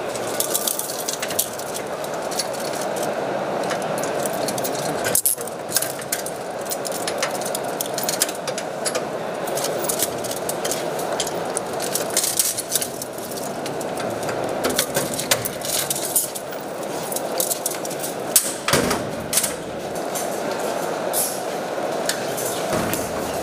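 Metal handcuffs and chains clinking and clicking shut as wrists are cuffed through a steel door hatch, many short metallic clicks over a steady background din, with a couple of louder knocks.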